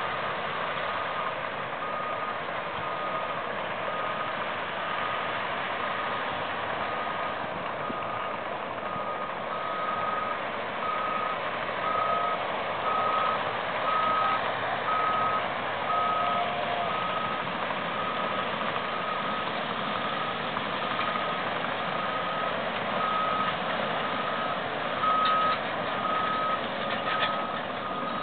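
Construction equipment working: the backup alarm of an earthmoving machine beeps steadily about once a second over the continuous drone of bulldozer and truck engines.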